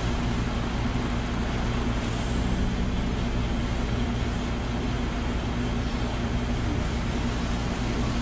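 Diesel pouring from a pump nozzle into a truck's fuel tank: a steady rushing of fuel with a low steady hum under it.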